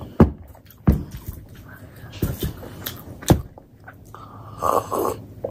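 Close-miked eating sounds of a person chewing paratha: about four sharp, wet mouth smacks spaced through the first few seconds, then a rougher stretch of chewing noise near the end.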